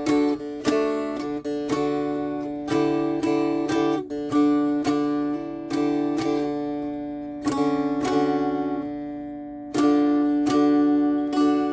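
Mountain dulcimer played in a strummed and picked melody over steady drone strings. A note rings out and fades for about two seconds before the next strum, near the end.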